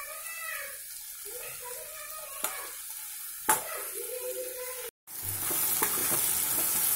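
Ivy gourd (tendli) masala sizzling in an aluminium pot, with a metal spoon clinking sharply against the pot twice, the louder clink about three and a half seconds in. After a brief break near the middle the sizzle is louder as the spoon stirs the vegetables.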